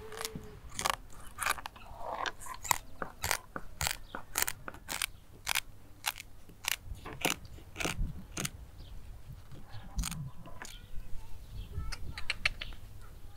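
Kitchen scissors snipping through the fin rays around the edge of a raw turbot: a series of crisp, crunchy cuts, about one or two a second, with a short pause before a last quick few near the end.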